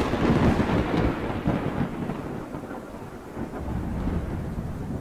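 Thunder sound effect: a deep rumble slowly fading, the tail of a sudden crash, swelling again briefly near the end.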